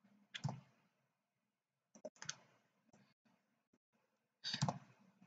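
Computer mouse clicks in three short clusters about two seconds apart, the last the loudest, from selecting vertices in a 3D modelling program.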